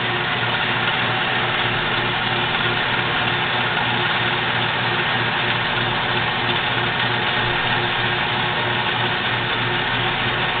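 Jet 7" x 12" horizontal band saw running steadily, its 3/4 horsepower motor humming and blade turning while the head lowers on the hydraulic down feed.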